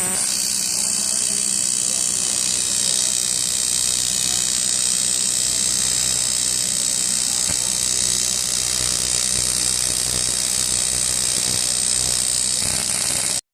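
Gas torch flame hissing steadily while heating an aluminium A/C pipe joint for welding.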